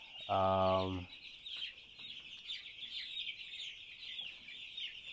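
A crowd of young broiler chicks peeping continuously. Early on, a man's voice makes one short low sound.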